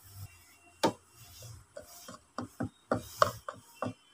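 Speaker grille being fitted over the woofer of a speaker cabinet: a string of sharp clicks and knocks, one loud knock about a second in and a quick cluster of them toward the end.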